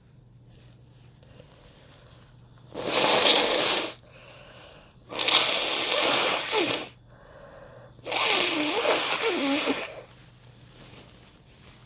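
A person blowing their nose hard three times, each blow a second or two long, with quick breaths in between; the second and third blows carry a wavering tone.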